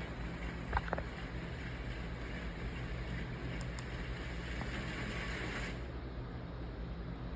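Ventisol ceiling fan running in exhaust mode: a steady motor hum with air hiss, the upper hiss dropping away about six seconds in. This fan developed a metallic noise that the owner traces to a worn bearing and a motor coil slipping in its housing.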